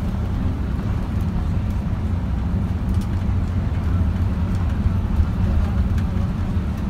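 Steady low rumble of a moving road vehicle, engine and road noise running evenly.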